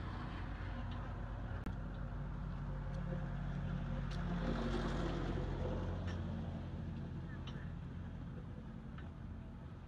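A motor engine's low steady hum that grows louder to a peak about halfway, then slowly fades.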